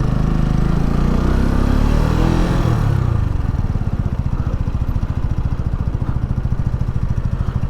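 Keeway Superlight 125cc motorcycle engine pulling with rising revs, which drop away about three seconds in. After that it runs steadily at idle.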